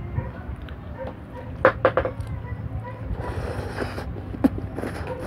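A person eating pancit canton noodles with a fork. There are a few sharp clicks a little under two seconds in, then a hissing slurp of noodles from about three seconds in, and one more sharp click near the end.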